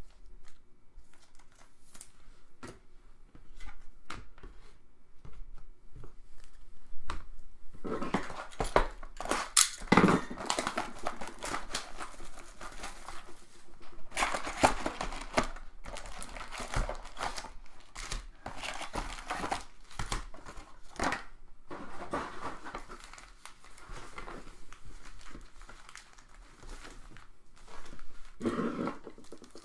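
Trading-card pack wrappers being torn open and crinkled while cards are handled. Only light clicks and rustles for the first eight seconds or so, then long stretches of crinkling and tearing.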